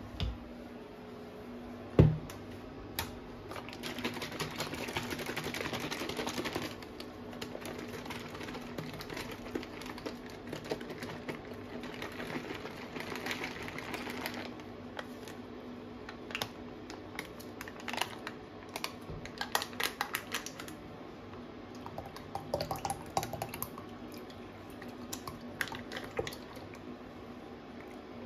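Kitchen handling sounds: a sharp knock about two seconds in as a plastic measuring jug is set down on a glass-ceramic hob. Then rustling and scattered clicks as a plastic tub is handled, opened and poured, over a steady low hum.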